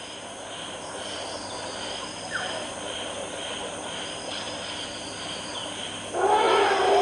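Outdoor jungle ambience: insects chirping in a steady, pulsing high band over a soft background hiss, with one short rising chirp about two and a half seconds in. Background music comes in just after six seconds.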